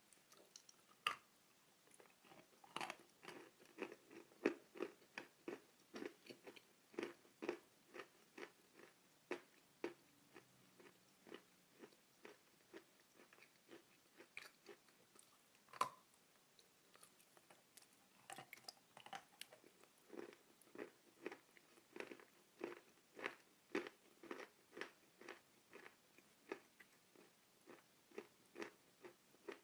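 Dry chalk being chewed close up: a steady run of quiet crunches, about two a second, with one sharper crunch a little past halfway.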